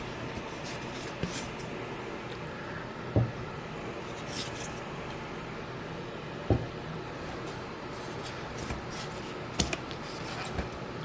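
Packaging being handled during unboxing: light rustling and rubbing over a steady hiss, broken by scattered sharp clicks and knocks. The loudest are a quick pair about halfway through.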